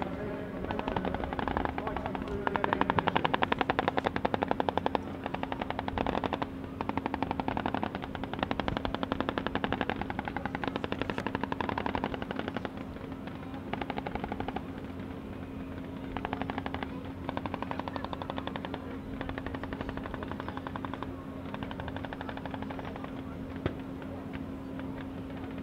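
Bursts of rapid machine-gun fire, one to a few seconds each with short pauses between, sometimes overlapping, over a steady low hum.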